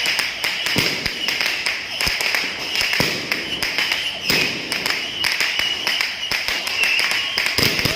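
New Year's firecrackers and fireworks bursting in rapid, irregular succession, sharp pops and cracks with a few louder bangs scattered through.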